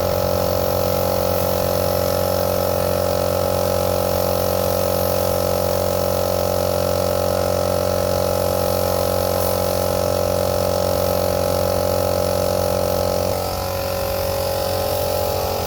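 Restored Suzuki Carry's engine idling steadily; about 13 seconds in its note shifts slightly and it gets a little quieter.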